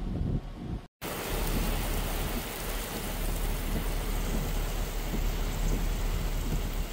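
Heavy rain falling steadily in a dense hiss, with a constant low rumble underneath. It starts abruptly after a brief dropout about a second in; before that only a lower rumble is heard.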